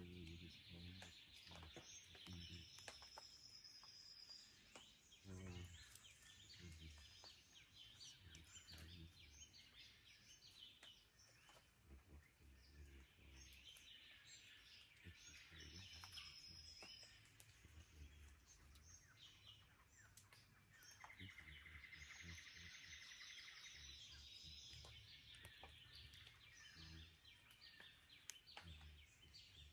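Faint dawn chorus of Australian forest birds: several birds calling and trilling together. A long, high whistled note comes twice, and a fast trill comes about two-thirds of the way in.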